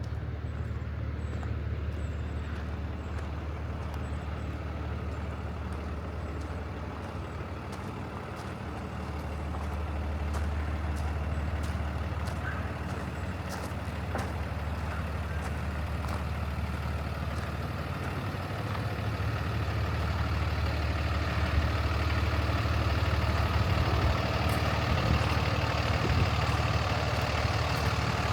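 Peterbilt 337's Paccar PX-7 inline-six diesel engine running steadily, growing louder toward the end.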